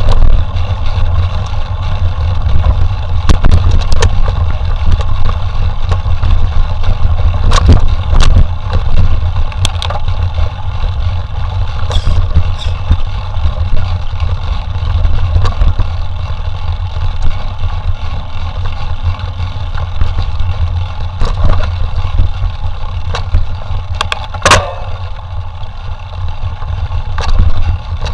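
Mountain bike ridden over rough trail: a steady low rumble of wind on the microphone with frequent knocks and rattles from the bike, one louder clack about three-quarters of the way through.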